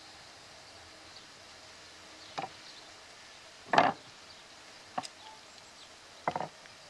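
Railcar wheels clacking over rail joints: four sharp knocks about a second and a quarter apart, the second the loudest, the last a quick cluster of taps, over a faint outdoor background.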